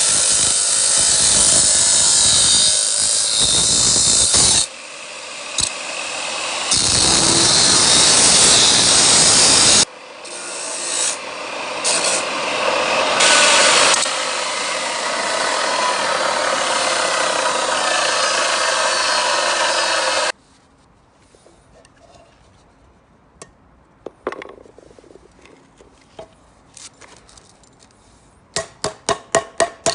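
Loud, steady, abrasive noise of a tool cutting or grinding into material, in several stretches that start and stop abruptly, ending suddenly about twenty seconds in. Then it goes quiet but for scattered clicks and a quick run of taps near the end.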